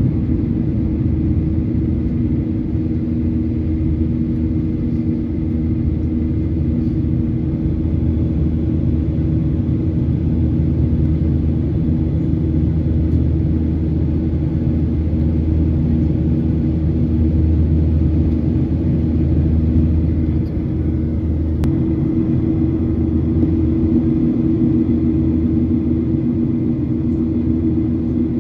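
Cabin noise inside a Boeing 737 MAX in flight: the steady rumble of its CFM LEAP-1B engines and the airflow, with a low hum of a few steady tones throughout.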